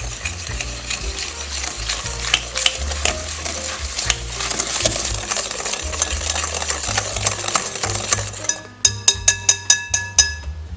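Metal balloon whisk beating butter, sugar and sour cream in a glass bowl: a fast, steady scraping and clattering of wires against glass. Near the end it turns into about a dozen quick ringing clicks, some six a second, of the whisk knocking against the glass bowl.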